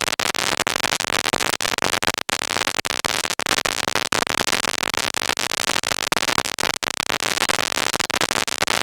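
Dense, continuous crackling static, broken by many brief dropouts.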